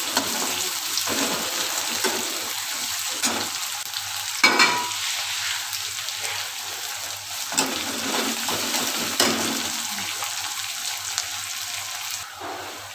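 Sliced onions sizzling in hot oil in a pan while being stirred, with a few sharp scrapes and knocks of the spoon against the pan, the loudest about four and a half seconds in. The sizzle softens near the end.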